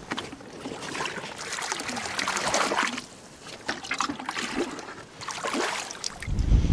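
Water splashing and trickling in irregular spurts; a low rumble comes in near the end.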